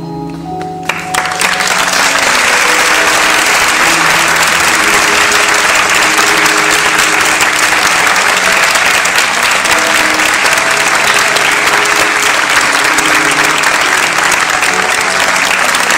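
Audience applauding, breaking out about a second in and then holding steady, over music.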